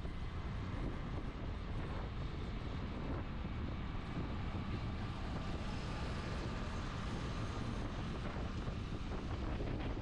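Wind buffeting the microphone, a steady low rumble, over the running noise of a moving vehicle.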